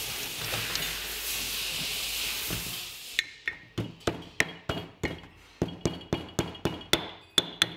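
A hammer tapping on metal, driving a new oil seal into the cover of a Kia Sorento's angle gearbox: about twenty quick strikes, roughly four a second, each ringing briefly. A steady hiss comes before the strikes start, about three seconds in.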